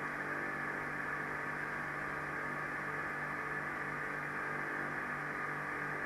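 A steady low hum with a hiss above it, unchanging throughout.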